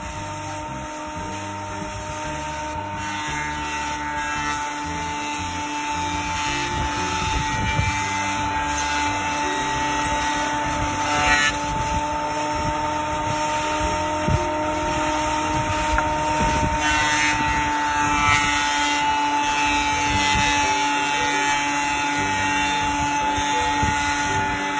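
Electric power tool motor running steadily with a high whine, with a few brief knocks along the way.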